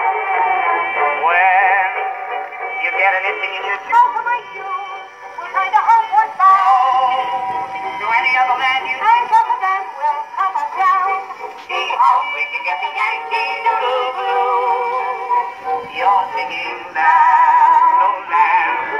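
1922 Victrola VV-80 acoustic phonograph playing a 78 rpm record of a singer with a strong vibrato and accompaniment. The sound sits in a narrow band with little bass or treble, with faint clicks from the record's surface.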